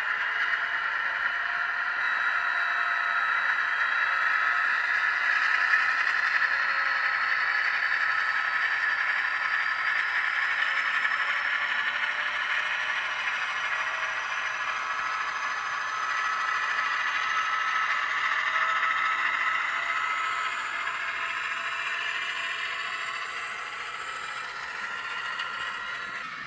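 Sound decoder in an N gauge Dapol Class 68 model locomotive playing a Class 68 diesel engine sound through its small twin speakers. The engine note runs on throughout, with a whine rising in pitch over several seconds about four seconds in, then grows fainter over the last few seconds.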